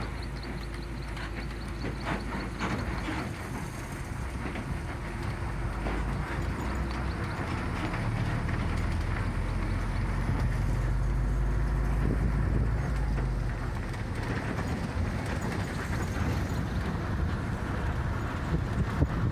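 Ride inside a moving route bus: steady engine drone and road rumble, with scattered rattles from the cabin. It grows somewhat louder in the middle and eases off again.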